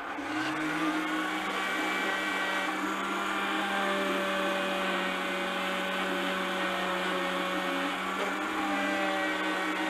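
Handheld electric detail sander with a triangular pad starting up, its motor hum rising in pitch over the first second, then running steadily as it sands a wooden walking stick, rounding over the edges of the carved snake.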